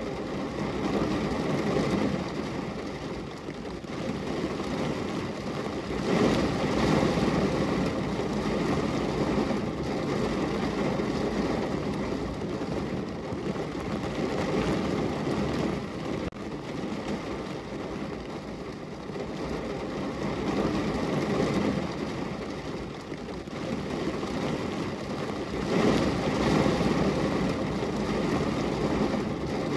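Steady rain on a window: a dense, even hiss and patter that swells louder and eases off every few seconds.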